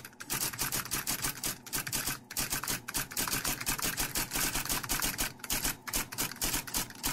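Typewriter keys clacking in a rapid, uneven stream of sharp clicks.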